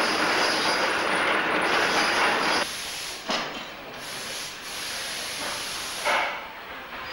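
Loud, steady hissing noise of foundry machinery that cuts off abruptly about two and a half seconds in. Then a quieter background, with a sharp click soon after and a short thud about a second before the end.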